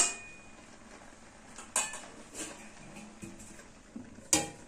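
A metal spatula strikes the rim of a metal kadai once with a sharp, ringing clink, followed by a few faint knocks. Near the end a steel plate lid clatters onto the kadai as the pan is covered.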